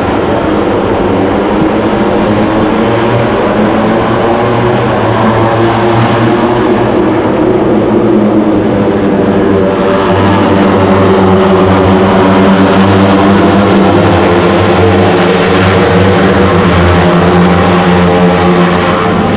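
Pack of Moto3 racing motorcycles, 250 cc single-cylinder four-strokes, accelerating away from a race start, many engines revving hard at once. It grows louder about halfway through.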